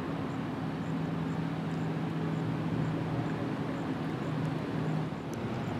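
Motorboat engine running at speed as a cabin cruiser planes past, a steady low drone over a constant hiss.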